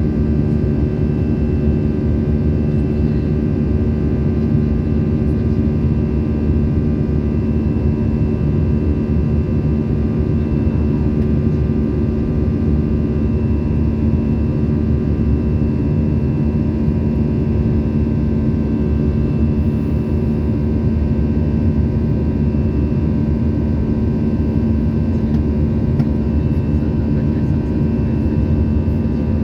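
Airliner cabin noise in flight: a steady, loud drone with a constant hum of several fixed tones over it, the abnormal noise heard in the cabin after takeoff.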